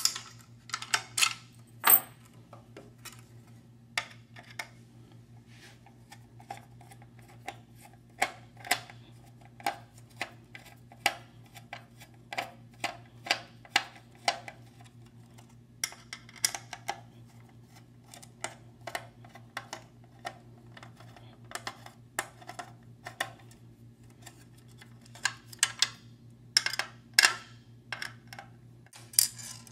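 Screwdriver work on small metal screws: irregular sharp clicks and light metallic clinks as the hard drive's four mounting screws are taken out of the metal DVR lid, over a steady low hum.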